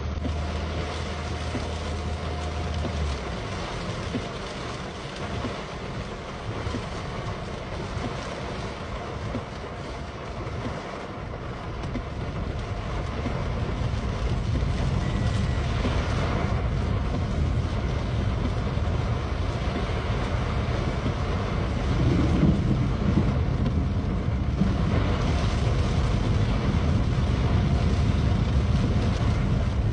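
Heavy rain on a car, heard from inside the cabin as it moves along a wet road: a steady rushing noise with a low rumble that grows louder about halfway through. A low hum cuts off about three seconds in.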